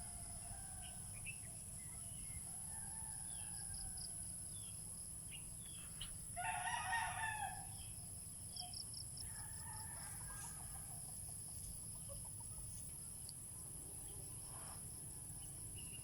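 A rooster crows once, about six seconds in, a drawn-out call over a steady high-pitched drone, with scattered short bird chirps.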